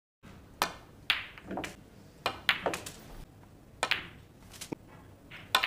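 Snooker balls clicking: the cue tip striking the cue ball and the balls knocking into one another. There are about nine sharp clicks in quick succession, some in pairs or threes, each with a short ring.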